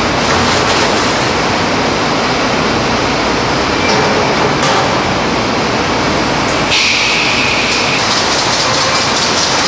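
Loud, steady machinery noise in a marmalade factory's boiling room, where fruit pulp is loaded into stainless steel boiling pans. A short high whine sounds about seven seconds in, followed by a run of faint ticks.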